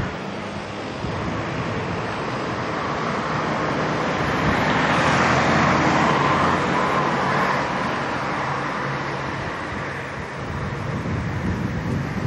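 City street traffic with a small hatchback car driving past; its engine and tyre noise swells about halfway through, then fades.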